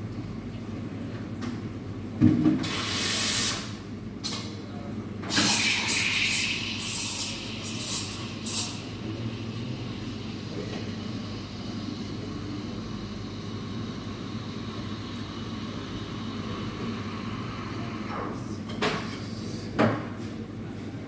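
Espresso machine and bar work: a sharp knock about two seconds in, then short bursts of hissing between about two and nine seconds over a steady low hum, and two more knocks near the end.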